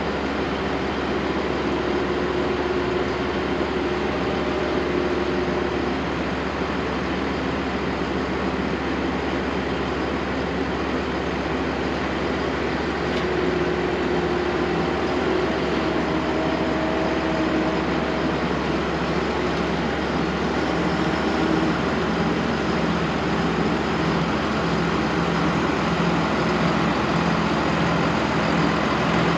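Truck engine running at a steady speed under road noise, with no shifts or revs; the sound grows slightly louder in the last part.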